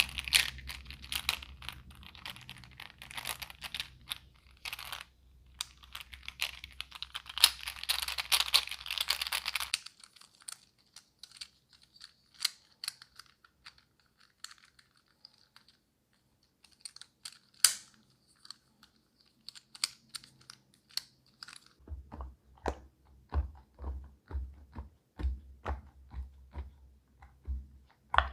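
Silicone pop-it fidget toy bubbles being pressed down, a run of small pops and clicks. They come thick and crackly at first, grow sparse in the middle, then turn into a steadier string of clicks near the end.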